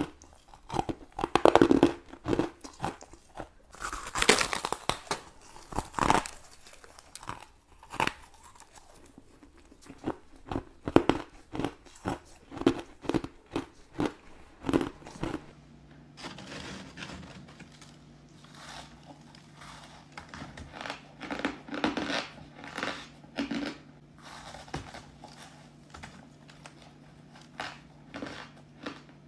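Frozen crushed ice being bitten and chewed close to a clip-on microphone, a dense run of crisp crunches. A low steady hum sits under the crunching from about halfway through.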